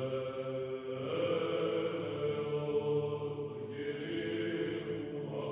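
Background music of slow chanting voices: long held notes over a steady drone, the pitch changing every few seconds.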